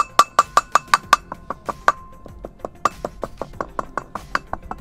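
Light taps driving a new front wheel grease seal into a VW Combi's brake disc hub, about five a second, each with a short metallic ring. The taps are softer after about two seconds.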